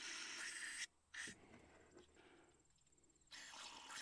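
Three short puffs of air blown through the F-350's small differential breather vent to clear it, the first and last lasting most of a second with a brief one between.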